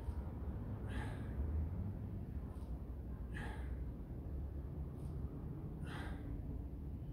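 A man breathing hard from the exertion of holding two kettlebells in the front rack during a squat set: three heavier exhales about two and a half seconds apart with softer breaths between, over a low steady background rumble.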